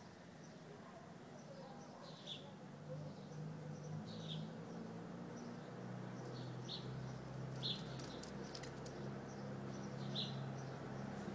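Birds giving short, high chirps every couple of seconds, over a faint low steady hum.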